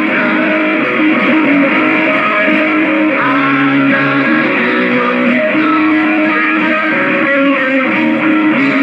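Rock band playing live, strummed electric guitar to the fore; an instrumental passage with no singing.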